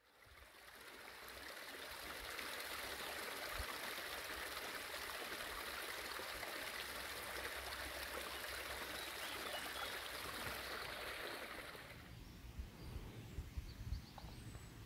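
Running water of a stream, a steady rushing that fades in at the start and falls away about twelve seconds in, leaving a low rumble and a few faint clicks.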